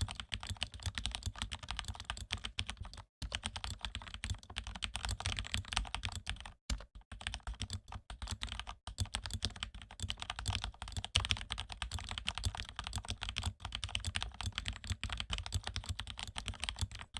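Mechanical keyboard with lubed Cherry MX Red switches being typed on fast and steadily, a dense run of key clacks with a few brief breaks.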